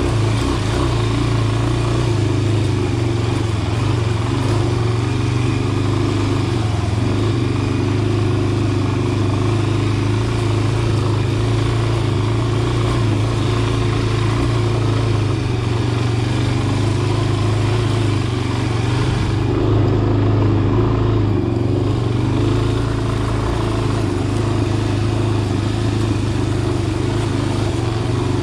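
Dirt bike engine running at a fairly steady speed while riding a dirt trail, its pitch holding nearly constant. About twenty seconds in, the sound turns briefly duller for a couple of seconds.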